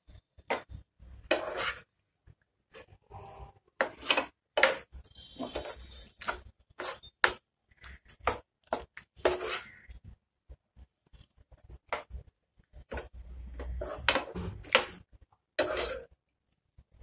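Metal slotted spatula scraping and clinking against a frying pan while stirring squid pieces in a thick masala, in irregular strokes with short pauses between them.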